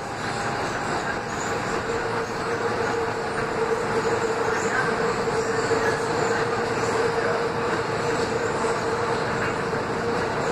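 R160 subway train running through a tunnel: a steady rumble of wheels on rail. A steady humming tone comes in about a second and a half in and holds at one pitch.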